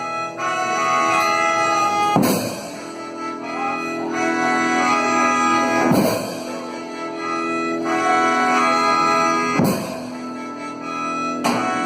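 Instrumental music of sustained brass-like chords, punctuated by a strong accented hit about every four seconds.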